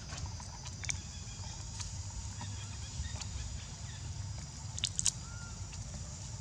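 Outdoor ambience: a steady low rumble under a faint, steady high-pitched hum, with a few faint clicks and one short faint chirp about five seconds in.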